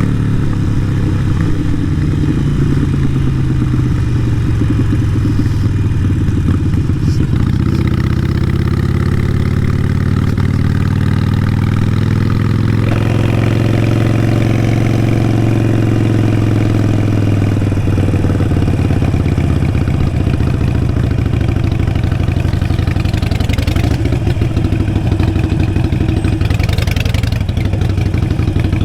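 Harley-Davidson Sportster 883 Iron's air-cooled V-twin running through a Vance & Hines exhaust as the bike is ridden, the engine note rising and falling back in the middle.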